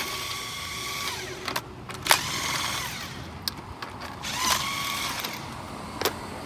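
18V DeWalt cordless impact wrench spinning already-loosened lug nuts off a car wheel, in two short runs of steady motor whine. A few sharp clicks and knocks come between the runs.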